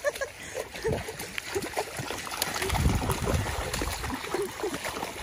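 Shallow creek water trickling over stones, with splashing from two miniature pinschers wading through it, and a low rumble about halfway through.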